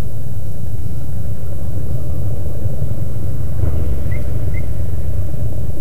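Harley-Davidson motorcycle V-twin engines running at low revs with a steady, low sound. Two short, high chirps come a little after four seconds in.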